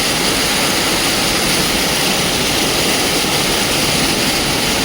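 Waterfall heard up close: a loud, steady rush of falling water.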